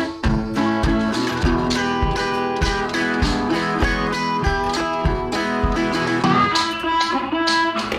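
Background music: an upbeat acoustic guitar tune with a steady beat.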